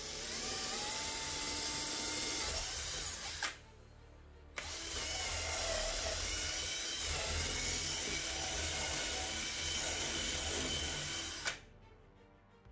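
18-volt cordless drill boring through a carpet-covered wooden board, its motor whining under load. It runs for about three seconds, stops for about a second, then drills again for about seven seconds before cutting off.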